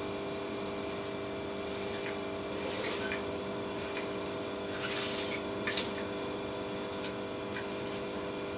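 Short, scattered rubbing and clicking of a Hornby Dublo model train being handled and set back on its metal three-rail track, the sharpest click about two-thirds of the way through, over a steady electrical hum.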